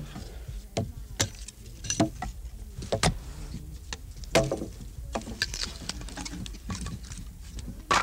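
Split firewood knocking and clattering as it is handled, in irregular sharp knocks about one or two a second, with a louder knock near the end.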